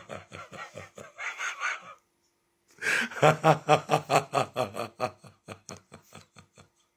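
A woman laughing in rhythmic bursts: one bout, a short pause, then a louder bout starting about three seconds in that trails off into fainter, more widely spaced bursts.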